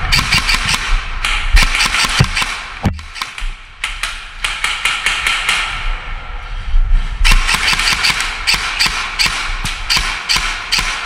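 Airsoft guns firing, in rapid strings of sharp shots with a brief lull about three seconds in.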